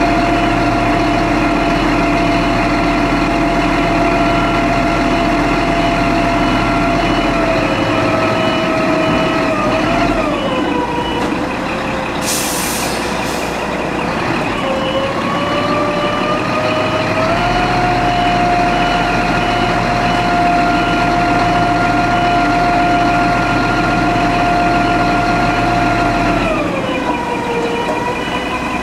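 Scania hook-lift truck's engine running at raised revs with a steady whine while its hook-lift arm hydraulically lowers a demountable pod onto the bed. The whine drops in pitch about ten seconds in, climbs back a few seconds later, and falls again near the end as the lift slows, with a brief hiss of air about twelve seconds in.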